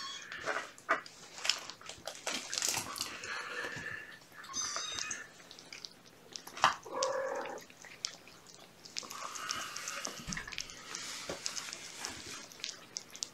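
Kittens eating wet cat food from a plate: a run of small wet smacking and chewing clicks, with a couple of short kitten mews, one about four and a half seconds in and another about seven seconds in.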